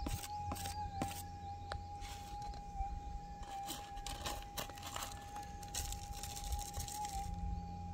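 Gold detector with a Coiltek Goldhawk coil holding a steady mid-pitched threshold tone that wobbles slightly now and then, over short scratching clicks of gravelly soil being raked through by hand and scoop while searching for the target.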